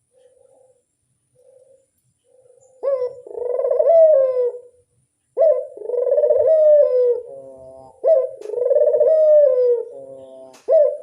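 Burung puter (Barbary dove) cooing: a few soft short coos, then about a third of the way in, loud rolling coos begin, each about two seconds long, rising quickly and falling slowly, repeated three times with a fourth starting near the end.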